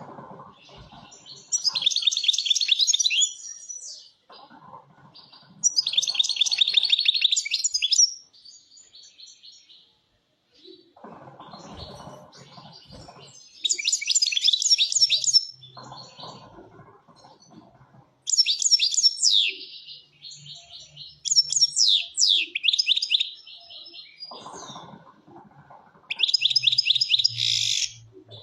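European goldfinch singing: six phrases of fast, high twittering trills, each one to two seconds long, with pauses between them.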